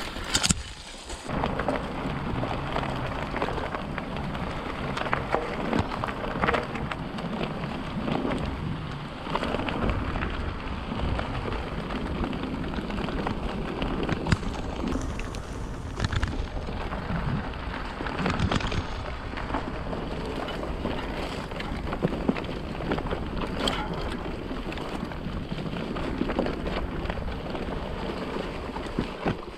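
Mountain bike riding along a dirt forest trail: tyres rolling over dry leaves and dirt, the chain and frame rattling over bumps, and wind rumbling on the microphone.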